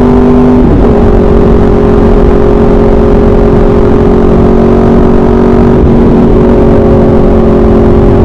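Motorcycle with an SC Project aftermarket exhaust running at steady revs while riding. Its note dips slightly about a second in, then holds steady.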